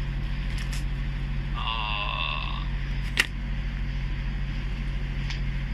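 Steady low electrical hum, with a brief warbling tone for about a second near two seconds in and a single sharp click about three seconds in.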